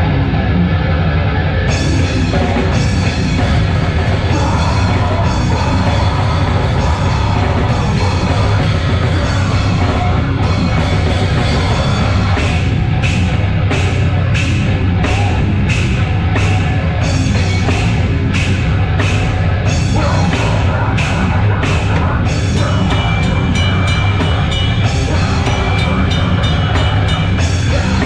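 A heavy metal band playing loud and live: distorted guitars and bass over a drum kit. From about ten seconds in, the drums and cymbals strike a steady beat of two to three hits a second.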